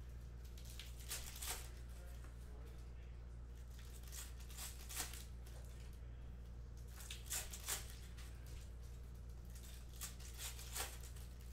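Foil trading-card packs crinkling and tearing as they are opened and the cards handled, in four short bouts of rustling a few seconds apart, over a steady low hum.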